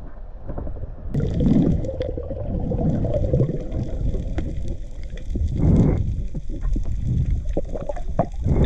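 Underwater sound picked up by a diver's camera: a muffled low water rumble that swells twice, with scattered faint clicks.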